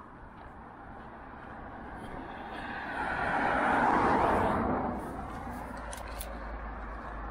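A car passes on a main road. Its engine and tyre noise swells to a peak about four seconds in, then fades away.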